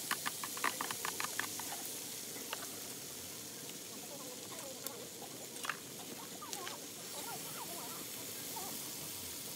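Marinated webfoot octopus sizzling in a hot frying pan on a wood-burning stove: a steady hiss, with a quick run of crackles and taps in the first second and a half and a few single clicks later.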